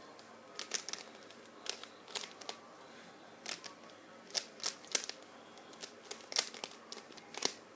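Rubik's cube being scrambled by hand: plastic layers turning with irregular sharp clicks, about two a second, often in quick pairs.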